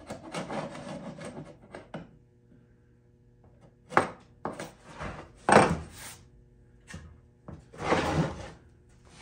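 Metal hand scraper drawn along the edge of an old wooden case: a run of quick scrapes, a short pause, then separate strokes, the longest one near the end.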